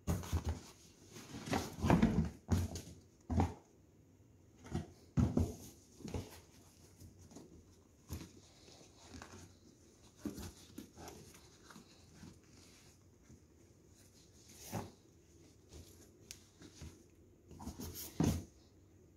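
Safety boots being handled in a cardboard shoebox and lifted out: irregular rustling, scraping and soft bumps of the boots against the cardboard, loudest about two seconds in and again near the end.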